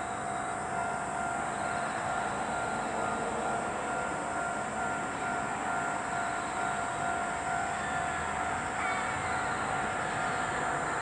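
Diesel railcar approaching, its engine running steadily with a constant whine, growing slightly louder toward the end. A steady high-pitched drone runs beneath it.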